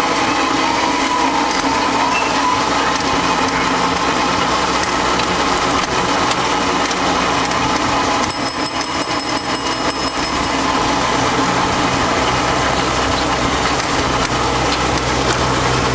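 A small passenger ride train running along, with a steady mechanical hum and rattle. About eight seconds in, a rapid high-pitched ringing pulse sounds for about two seconds.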